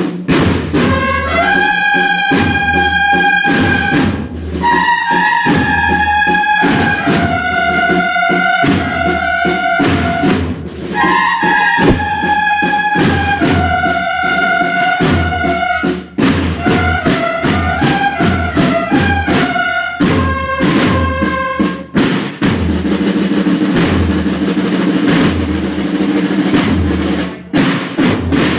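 Brass band with drums playing a slow processional march, a melody of long held notes over steady drumming. About three quarters of the way through the melody stops and only the drums carry on.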